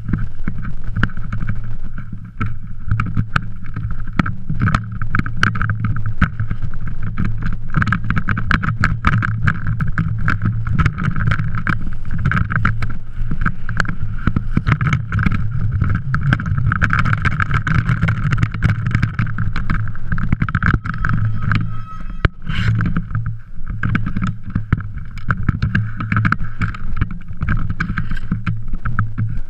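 Dense, irregular rattling and knocking from an action camera on a rotating boom mount on a mountain bike being ridden over rough trail, over a steady rumble and hum. A short run of regular ticks comes about three quarters of the way through.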